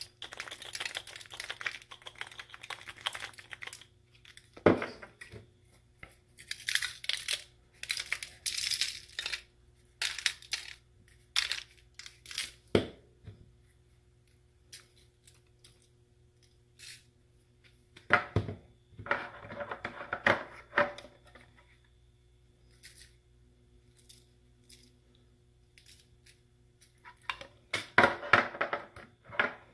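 A spice shaker being shaken and the aluminium foil lining of a baking pan crinkling as it is handled, in irregular bursts. Several sharp knocks fall between the bursts.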